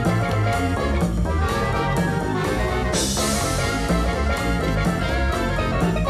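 Background music: upbeat swing-style jazz with brass and a steady beat, with a bright crash about three seconds in.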